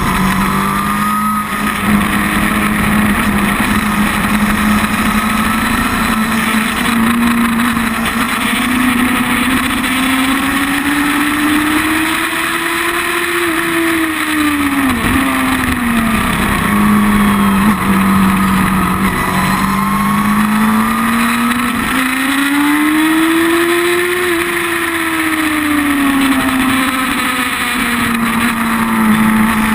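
Sport motorcycle engine running hard on a racetrack, heard up close at the carbon exhaust muffler, with a rush of wind and road noise. The engine note climbs slowly and falls back twice, dropping sharply about halfway through.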